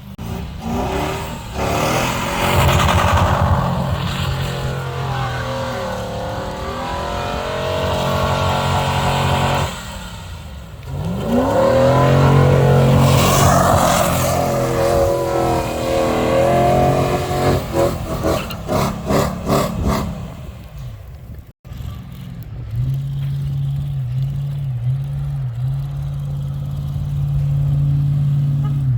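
Car engine revving hard in two long surges, its pitch climbing and falling as the car is driven sideways in snow. After a sudden cut about two-thirds in, the engine holds a steady pitch.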